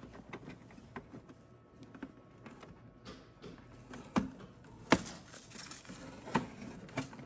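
Plastic clicks and light taps as hands handle the plastic body and base of an Arctic Air tower cooler during assembly. They come scattered, with the sharpest knocks about four and five seconds in, and again near the end.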